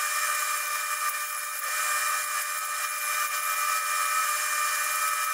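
Small metal lathe running at a steady speed as its cutting tool turns down a small metal part: a steady high whine over a hiss.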